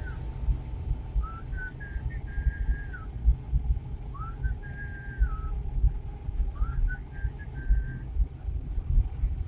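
Suzuki Carry 1.0 pickup running along the road, heard from inside the cab as a steady low rumble. Over it a high whistled phrase repeats four times, each about a second long: a short rising note, a held higher note, then a drop.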